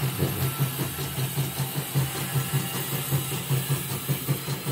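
CNY E960 embroidery machine stitching a test design with its casing off, a steady low pulsing hum. Freshly fitted with a new shuttle hook and inner rotary hook, it runs smoothly.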